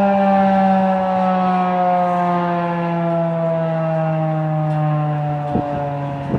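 Federal Signal 2001-DC tornado siren winding down at the end of its full-alert signal. Its steady rich tone slides slowly lower in pitch and fades. A few low thumps come near the end.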